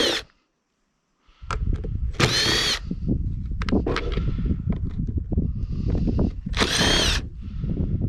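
Power drill backing screws out of a cast-iron safe door, in short bursts of motor whine that rises then falls, about two seconds in and again near seven seconds, with dense low clattering between them. The sound cuts out for about a second near the start.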